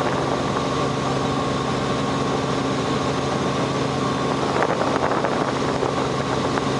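Robinson R44 helicopter in flight, heard from inside the cabin: the steady drone of its six-cylinder Lycoming piston engine and rotors, with a constant low hum.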